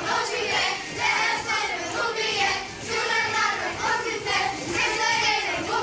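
A group of children singing together.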